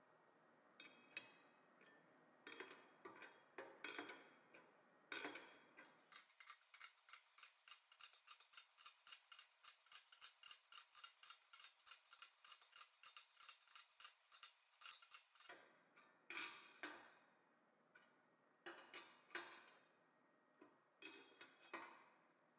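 Faint metal clicking of a wrench turning the nut on a seal installer's threaded rod, pressing an inner axle seal into a Dodge Ram AAM 9.25 front differential housing. Scattered clinks, then a steady run of about four clicks a second for around nine seconds, then scattered clinks again.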